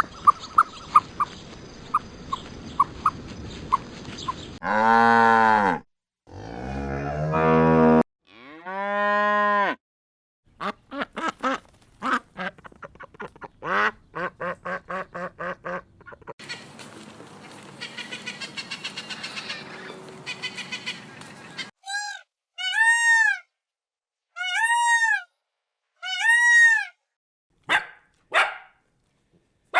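A run of farm animal calls, one after another: cattle mooing in long calls, a series of short calls, then five loud arched calls in a row near the end.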